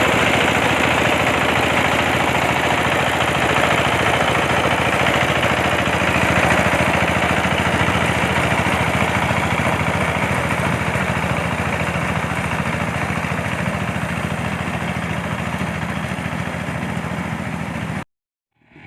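Crown Hornet 7130 mini combine harvester running steadily, its engine and threshing machinery making a dense mechanical din with a fast, even pulse. The sound cuts off suddenly near the end.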